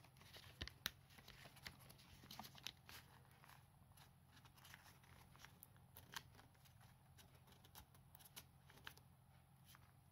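Faint crinkling and soft ticks of origami paper being folded and creased between fingers, scattered irregularly, the sharpest just under a second in, over a low steady hum.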